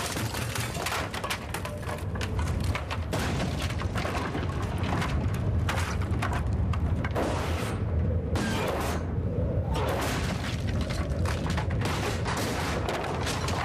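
Tornado-force storm wind rumbling against a building, with a dense, continuous run of cracks and bangs as the ceiling breaks apart and debris strikes.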